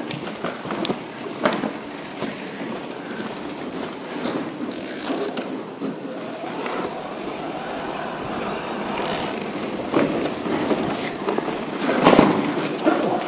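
Focus Jam2 e-mountain bike rolling over a rough, broken-up old rail bed: steady tyre noise with scattered knocks and rattles, and heavier bumps about ten and twelve seconds in.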